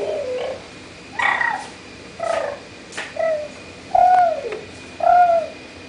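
A toddler's voice making short, high-pitched calls about once a second, the later ones each sliding down in pitch.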